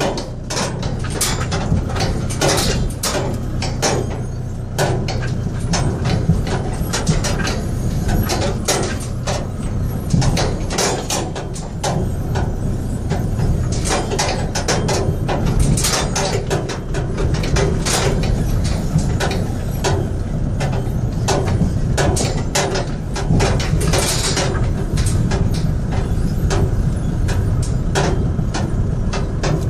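A vehicle driving slowly over a badly broken, potholed road. There is a steady low rumble, with frequent irregular knocks and rattles as it jolts over the holes and loose stones.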